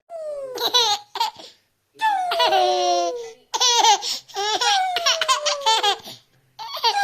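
A baby laughing in repeated bursts of giggles, set off by a woman's long, high, falling vocal noise made several times.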